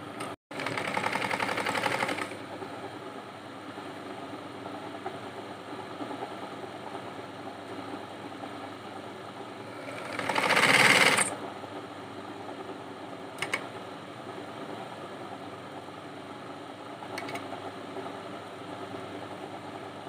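Sewing machine stitching a zip into a dress seam in two short, louder runs, one about half a second in and one about ten seconds in, with a steady hum in between and a couple of faint clicks in the later part.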